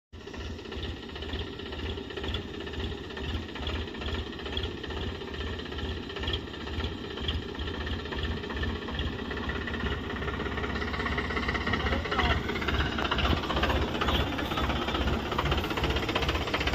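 Sonalika DI-740 III tractor's three-cylinder diesel engine running with a steady low beat as the tractor drives towards the camera, growing louder as it nears.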